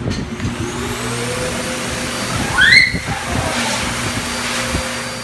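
A motor vehicle's engine nearby, rising in pitch over the first second or so and then running steadily. A short, high rising whine comes about two and a half seconds in and is the loudest moment.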